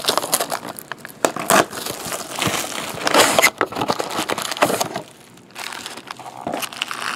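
Plastic shrink wrap crinkling and tearing as a sealed trading-card box is opened, then foil card packs rustling as they are lifted out and stacked. The crinkling is dense and snappy at first and lighter from about five seconds in.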